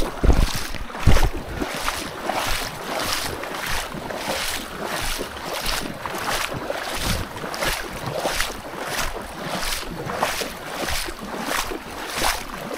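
Footsteps of a man walking in waders, a steady stride of about two steps a second, each step a swishing rustle.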